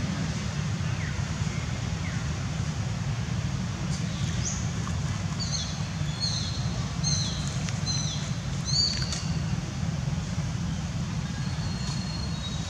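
Steady low rumble, with a bird's short high chirps repeating about twice a second through the middle few seconds.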